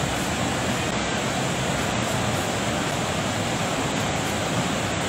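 Steady, even rush of a muddy mountain river in flood.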